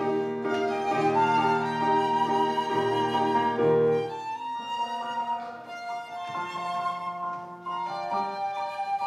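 Live trio of flute, violin and piano playing a lyrical piece with reverberant hall sound. About four seconds in, the playing drops to a quieter, thinner passage.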